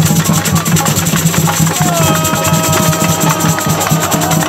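Samba-style street drum band playing a fast, steady rhythm on surdo bass drums and other drums. About two seconds in, a long held tone joins over the drums.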